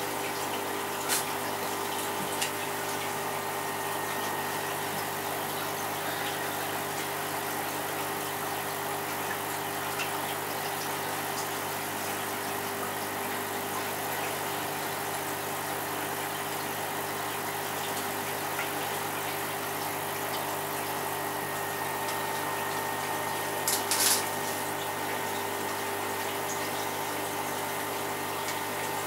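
Aquarium pump or filter motor humming steadily with water running through it. A few faint clicks come near the start and a louder short knock about 24 seconds in.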